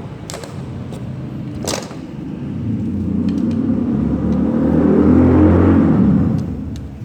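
A motor vehicle passing by: a low engine rumble that swells over a few seconds, peaks and then fades away. A couple of sharp clicks come before it.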